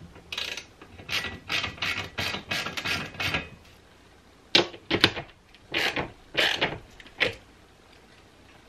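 Socket ratchet wrench clicking as it drives a bolt into a wall stud. A quick run of back-and-forth ratchet strokes, a pause about three and a half seconds in, then a few shorter separate bursts.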